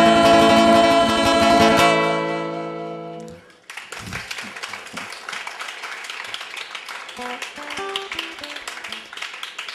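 Two men's voices holding the last sung note over a strummed acoustic guitar chord, ringing out and fading away over about three seconds. Then a quieter stretch of faint background noise with scattered clicks and a few soft single guitar notes near the end.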